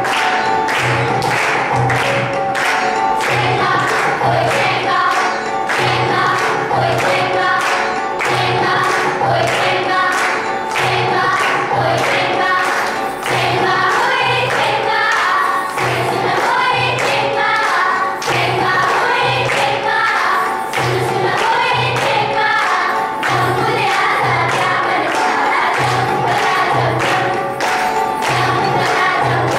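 A song with choral singing over a steady, regular beat.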